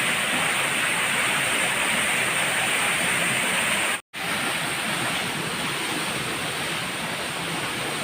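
Waterfall: a steady, even rush of falling water. It cuts out for an instant about halfway through, then carries on a little quieter.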